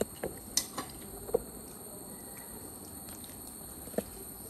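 People eating noodles: faint chewing and slurping, with a few short clicks of spoons and chopsticks against ceramic bowls.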